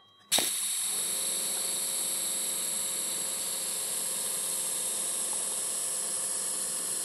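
TIG welding arc laying a tool steel hardfacing bead along the edge of a steel axe head. The arc strikes with a sharp crack about a third of a second in, then holds a steady loud hiss and buzz.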